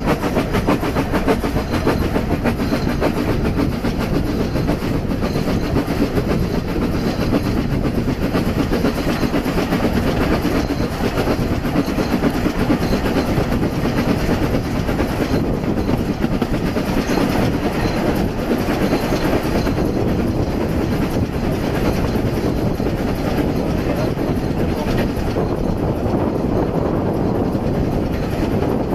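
Narrow-gauge Isle of Man Railway steam train running, heard from an open carriage window: a steady rumble with a continuous rapid rattle and clatter of the carriage wheels on the track.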